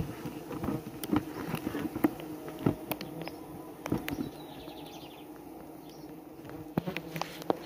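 Mandaguari-preta stingless bees (Scaptotrigona) buzzing in a steady hum around their opened nest, a colony disturbed and defensive. Scattered light clicks and taps of handling sound over it.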